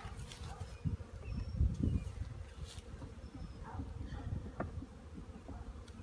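Honeybees buzzing in a steady hum around an open top bar hive during a package installation, over a low rumble that is loudest about two seconds in.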